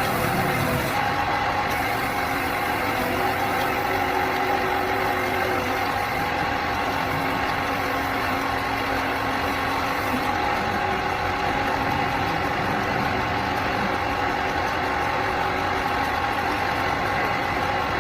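An engine running steadily with a constant hum.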